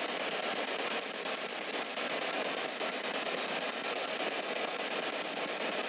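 Spirit box sweeping through radio frequencies, giving a steady hiss of static with rapid choppy fragments, through its small speaker.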